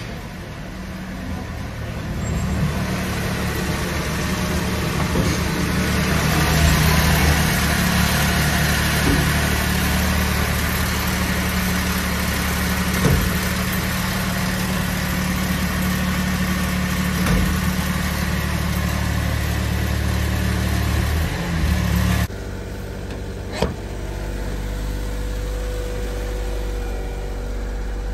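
1997 Mitsubishi Minicab truck's small three-cylinder engine running steadily, heard from beneath the truck with a broad rushing noise over the engine hum. About 22 seconds in the sound cuts to a quieter, steady idle heard inside the cab, with a single sharp click soon after.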